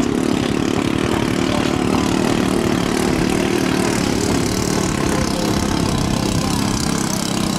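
Underbone motorcycle engine of a small longtail racing boat, running hard at speed with a steady, unbroken engine note.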